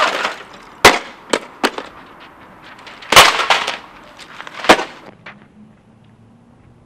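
Hard objects thrown from an upper window crashing onto asphalt: about five sharp impacts with clattering, the loudest about three seconds in, then it goes quiet.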